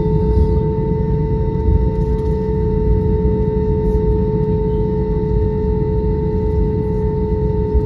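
Airbus A321's twin CFM56 engines at taxi idle heard from inside the cabin: a steady low rumble under a constant droning hum.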